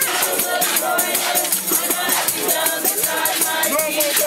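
A group of people singing a hymn together, with a tambourine jingling in a steady rhythm.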